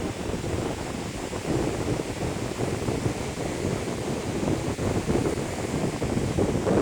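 Loud wind buffeting a phone's microphone: an uneven, low rushing noise that keeps swelling and dropping.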